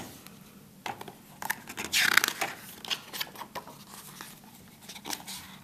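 A page of a hardcover picture book being turned by hand: paper rustling and swishing in a few short strokes, the loudest about two seconds in.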